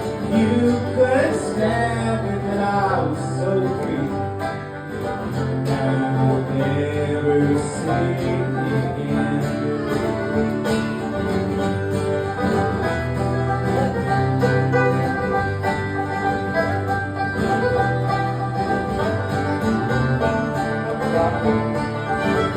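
Acoustic folk band playing an instrumental break, with acoustic guitar and banjo picking over a steady bass line.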